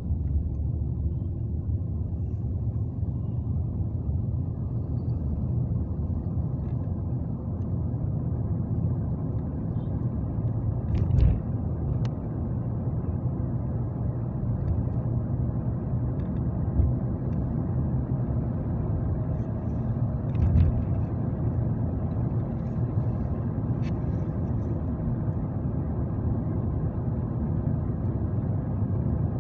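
Steady low rumble of a moving road vehicle's engine and tyres, heard from inside the vehicle, with a few short knocks along the way.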